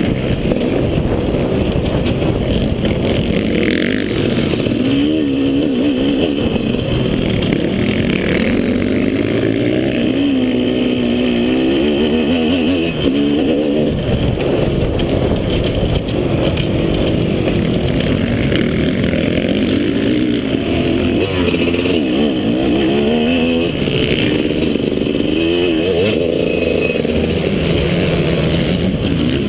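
Motocross bike engine, heard close up from a camera on the bike, revving hard and steadily, its pitch climbing and dropping again and again as the rider works the throttle.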